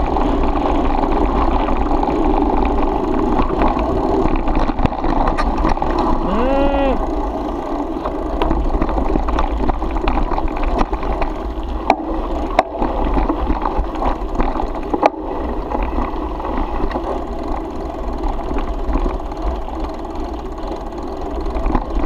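Mountain bike running down a loose gravel dirt track: steady wind rumble on a handlebar-mounted action camera's microphone, with the crunch of tyres on gravel and scattered sharp clicks and rattles from the bike over stones.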